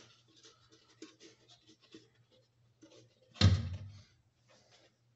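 Plastic parts of a Fluval 306 canister filter being handled and fitted together by hand: light scraping and small clicks, with one louder knock about three and a half seconds in.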